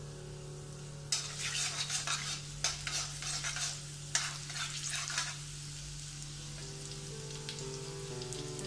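Chopped garlic sizzling in hot oil in an iron wok on high flame, while a metal slotted spatula stirs and scrapes it in a run of quick strokes from about one second in to about five seconds in. A steady low hum runs underneath.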